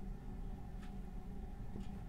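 A clock ticking steadily, two ticks about a second apart, over a low steady room hum.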